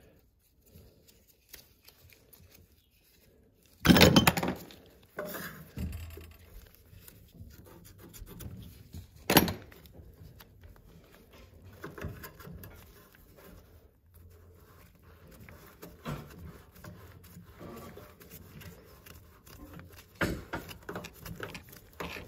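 Knocks and clatter of hand work on a tub drain assembly: quiet at first, then a loud knock about four seconds in and another about nine seconds in, with scattered lighter clicks and rattles after.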